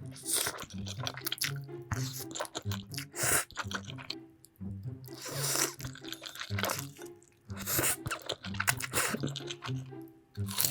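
Background music over repeated loud crunching and chewing of food.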